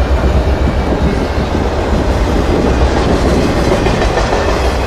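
Freight train rolling past close by, a loud steady rumble of cars running on the rails.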